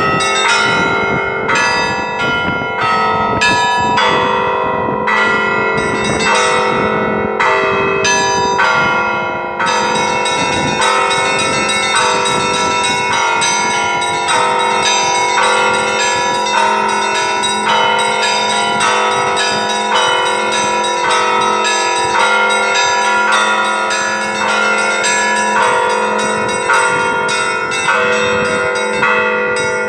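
Orthodox church bells ringing the Easter peal. For about the first ten seconds the bells are struck separately, somewhat more than once a second; then many bells are struck rapidly in a dense, continuous peal over a steady low hum.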